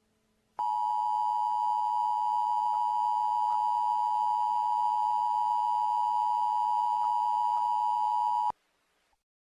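Emergency Alert System two-tone attention signal: two steady sine tones, 853 and 960 Hz, sounding together as one harsh electronic tone. It starts about half a second in, holds for about eight seconds and cuts off abruptly, signalling that an emergency alert message is about to follow.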